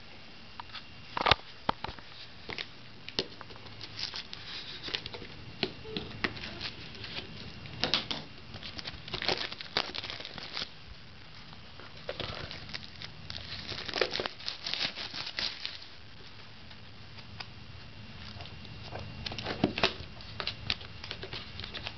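Plastic wrapping and packaging crinkling and tearing as a trading-card box is opened by hand, in irregular rustles and sharp crackles.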